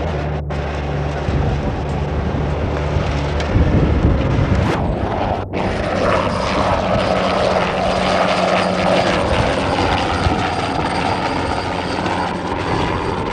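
Aircraft engine noise: a loud, steady mechanical drone with a thin, high, steady whine over it. The sound briefly drops out about half a second in and again about five and a half seconds in.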